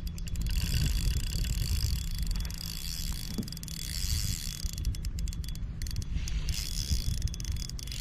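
Spinning reel ticking and whirring as a hooked salmon is played on the rod, in clusters near the start and again about five seconds in, over a low rumble of wind on the microphone.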